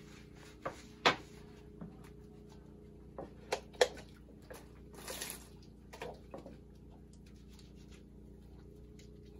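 Bath water being scooped from a plastic bucket with a plastic bottle: a few sharp plastic knocks, the loudest about a second in and near four seconds, and a short splash of water about five seconds in, over a steady low hum.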